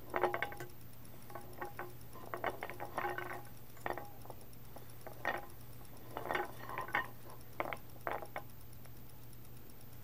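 Short clinks and clatters of a utensil and toy eggs against a pan and a bowl, coming in irregular clusters, each with a brief ringing tone.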